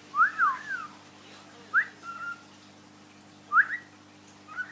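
Cockatiel whistling: a series of short chirped whistles, some sweeping up and some arching up and down, with pauses between them.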